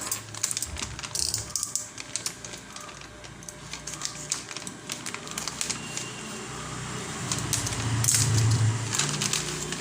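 The box of a soldering iron being opened by hand: irregular clicks, scrapes and rustling of cardboard and paper packaging.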